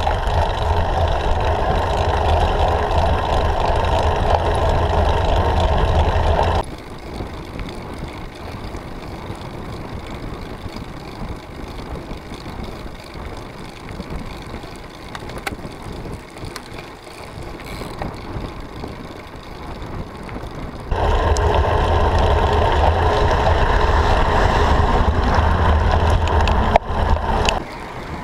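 Steady wind and road rumble on a bicycle-mounted camera's microphone while riding a road bike. The noise drops abruptly to a softer hiss about seven seconds in and comes back loud about 21 seconds in.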